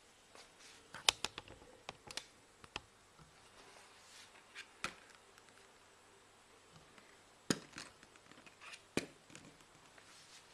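Plastic eyeglass frames clicking and tapping on a tabletop as they are picked up and set down by hand: a scatter of sharp clicks, the loudest about a second in and two more near the end.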